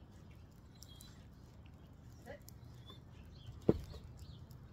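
A single short, loud dog bark about three-quarters of the way through, over a faint steady background; a smaller short sound comes a little over a second before it.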